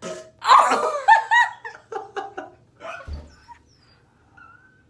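A person laughing: a burst of laughter followed by a run of short laughs that fade out, with a brief low thump about three seconds in.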